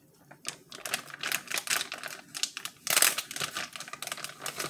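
Rapid, irregular crisp clicking and rustling of things being handled close to the microphone, loudest about three seconds in.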